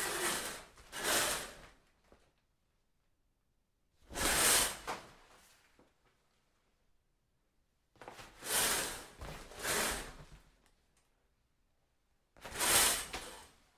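Window curtain being drawn open and shut: six swishes of about a second each, in a pair, a single, another pair and a last single, with quiet gaps between them.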